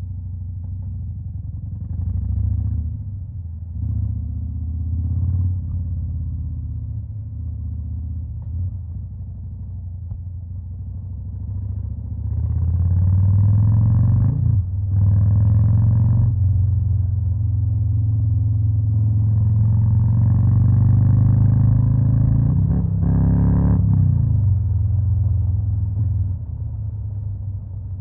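Harley-Davidson Fat Boy's Stage 2-tuned Milwaukee-Eight V-twin running with a low, uneven rumble and a few short throttle swells. About twelve seconds in it gets loud and rises in pitch, with brief breaks like gear changes near the middle and again near the end. It then falls back to a quieter, low rumble.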